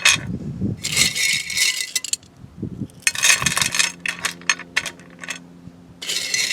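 Rocks being laid into terra cotta saucers, clinking against each other and the clay. There are many sharp clicks, and three scrapes of about a second each as stones are pushed into place.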